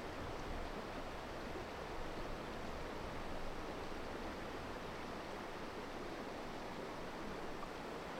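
Steady rushing of a river's flowing water, even and unbroken.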